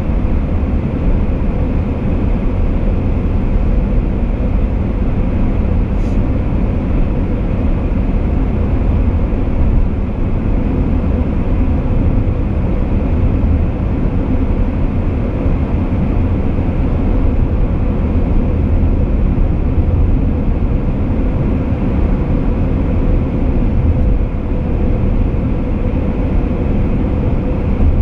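Car cruising at steady highway speed: a steady low rumble of tyres on the road surface and the engine, with a faint steady hum running through it.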